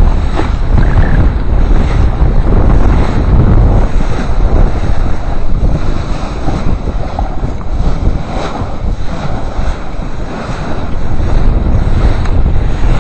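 Heavy wind buffeting the microphone over the rush and splash of water along the hull of a sailboat heeled over under sail.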